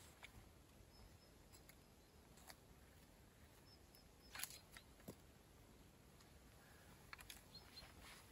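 Near silence outdoors, with a few faint scuffs and clicks of footsteps and handling on dry ground; the sharpest click comes about halfway through. Faint short high bird chirps come a few times.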